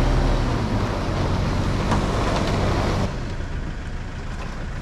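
Vehicle engine running hard while pulling a van stuck in soft ground out on a tow rope, easing off sharply about three seconds in.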